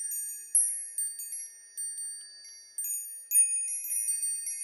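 High, bright chimes struck one after another at an uneven pace, each note ringing on and overlapping the next.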